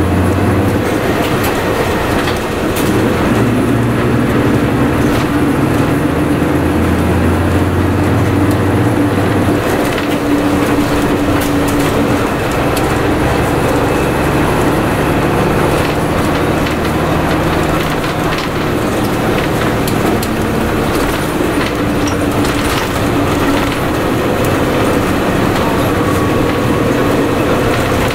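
Interior running sound of a 1998 Mitsubishi Fuso Aero Midi MK (KC-MK219JVF) city bus under way: steady diesel engine drone with road and body noise and scattered rattles and clicks. The low engine drone steps down about ten seconds in.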